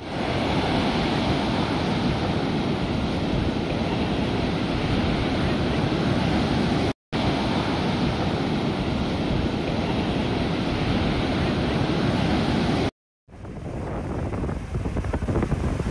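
Sea surf washing onto a sandy beach, a steady roar of breaking waves with wind rumbling on the microphone. The sound cuts out briefly about seven and thirteen seconds in, and is quieter after the second break.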